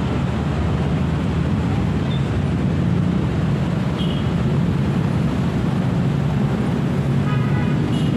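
Steady low background rumble at an even level, with a brief faint high chirping near the end.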